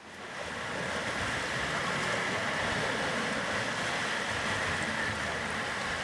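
Ocean surf rushing steadily, swelling up over the first second.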